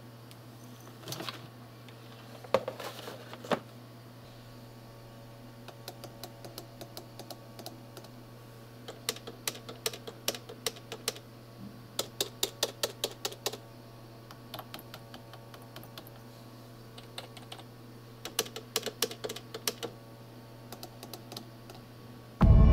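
Typing on computer keyboard keys: quick runs of light plastic key clicks in a dozen or so bursts, each a second or two long, with short pauses between them.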